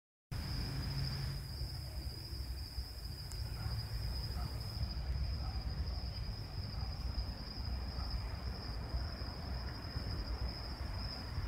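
Crickets chirping in one steady, unbroken high trill, with a low rumble underneath.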